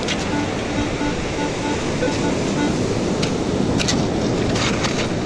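Metal detector sounding a run of short, evenly spaced beeps, about four a second, that stop a little past halfway: a clean, unbroken tone, the sign of a solid buried metal target. Steady surf in the background, with a few sharp clicks near the end.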